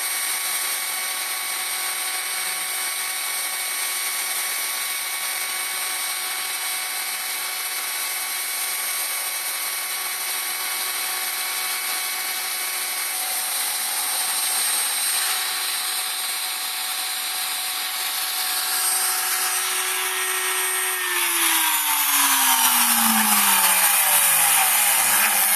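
CNC router spindle running with a steady high whine while a small end mill cuts into plywood. About 21 seconds in, the sound grows louder and a set of falling tones sweeps down over the last few seconds.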